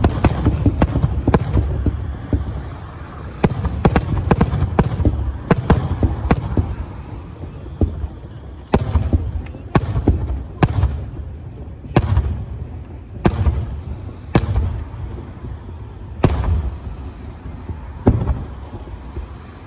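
Aerial firework shells bursting: a dense barrage of booms for the first several seconds with a low rumble under it, then single booms about once a second.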